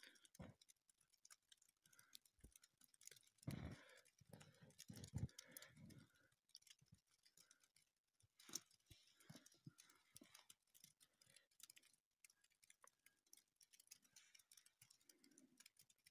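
Near silence, with faint scattered clicks and a few soft low thumps between about three and six seconds in.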